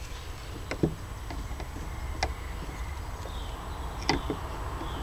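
Wind rumbling on the microphone of a handheld camera, with a few sharp clicks and knocks from handling and footsteps on gravel, the loudest a little under a second in, and faint bird chirps.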